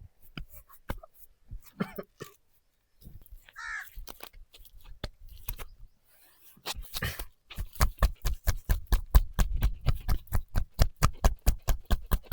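Rapid rhythmic percussive massage strokes, hands striking the body about five or six times a second, beginning about halfway through. Before that, scattered soft taps and rubbing, and one brief high call that rises and falls at about four seconds.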